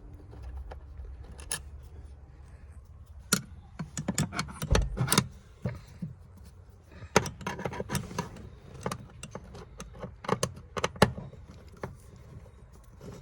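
Irregular metallic clinks and rattles of hand tools and screws on the bonnet release cable bracket as it is unscrewed. They come in clusters, busiest a few seconds in, with single sharp knocks near the end.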